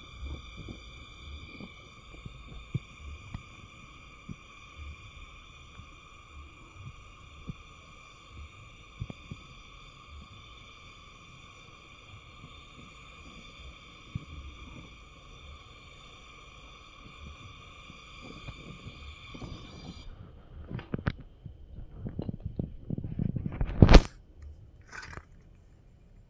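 Portable brazing torch running with a steady high whine while a refrigerator pipe joint is brazed, with faint knocks underneath. The whine stops about twenty seconds in. Metal tool clatter follows, with one loud knock near the end.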